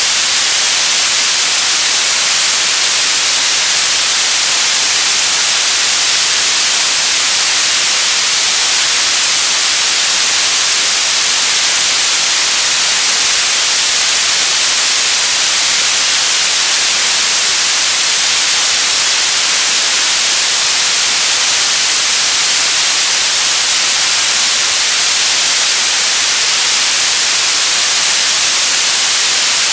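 Radio static: a steady, loud hiss, strongest in the high frequencies, unchanging throughout.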